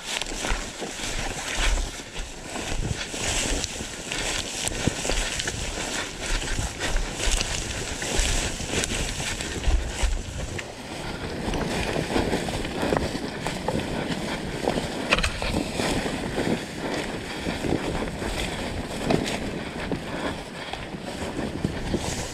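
Enduro dirt bike riding over rough forest terrain: engine noise mixed with wind on the microphone and frequent knocks and thumps from the bike.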